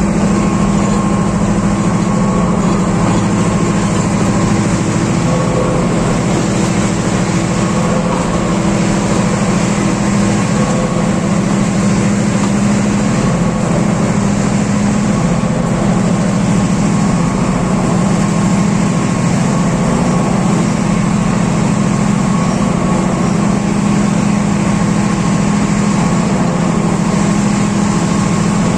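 Class M6 diesel-electric locomotive's EMD engine running loud and steady under heavy throttle, a constant low drone with no let-up.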